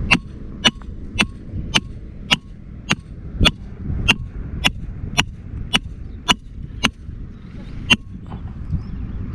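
Sledgehammer striking the head of a metal stake, driving it into hard, stony ground: steady, ringing metallic clanks about two a second, fourteen blows in all, the last one after a short pause near the end.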